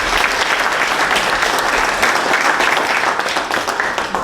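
Audience applauding, a dense patter of many hands clapping at once that eases slightly near the end.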